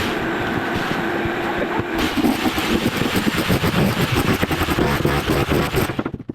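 Bosch Bulldog Max SDS Plus rotary hammer running in chisel mode with a tile chisel bit, rapidly hammering as it breaks up floor tile and mortar, stopping briefly near the end.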